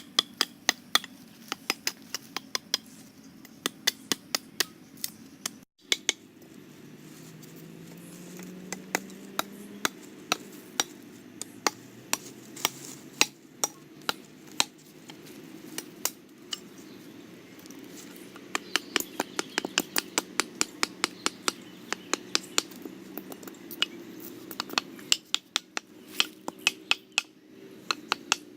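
Sharp taps and clicks of hard objects striking, in irregular runs, some several a second, over a faint low hum.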